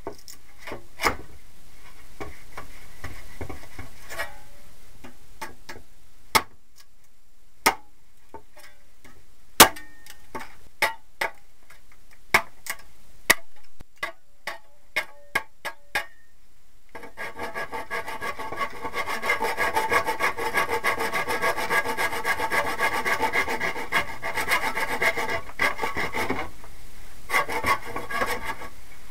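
Scattered knocks and taps, then, about two-thirds of the way in, a hand file or rasp starts working in quick back-and-forth strokes, with a short break near the end.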